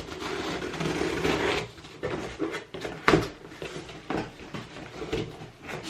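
Cardboard shipping box being opened by hand: a rasping tear for the first second and a half or so, then scattered knocks and rustles of the cardboard being handled.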